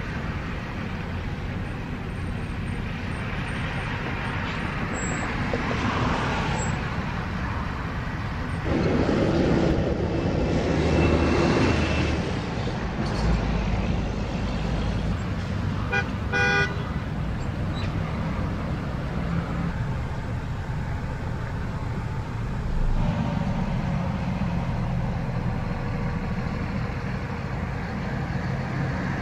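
Road traffic driving past: engines and tyres of trucks, pickups and trailers, swelling as a large vehicle goes by about a third of the way in. A short vehicle horn toot sounds about halfway through.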